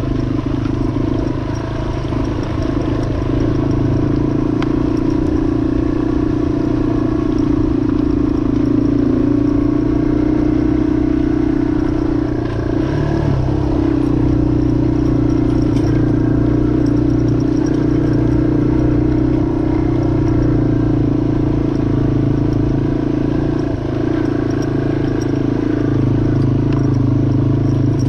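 2003 Yamaha XT225's air-cooled single-cylinder four-stroke engine running steadily as the motorcycle is ridden. The engine note eases off briefly a few times, around 13 and 24 seconds in.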